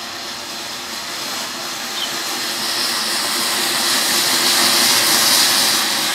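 Ground firework fountain spraying sparks with a steady, loud hissing rush that builds louder over several seconds.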